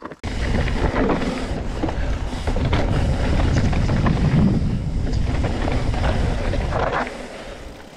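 Wind buffeting the camera microphone and mountain-bike tyres rumbling over a dirt trail at speed, with scattered knocks from the bike over bumps. It starts suddenly just after the start and eases off near the end.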